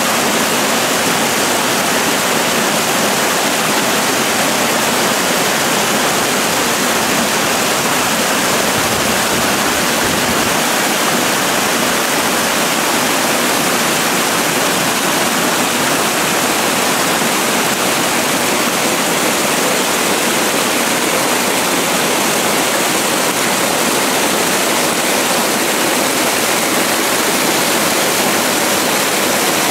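Stream water pouring down a small rocky cascade into a pool: a loud, steady rush of falling water.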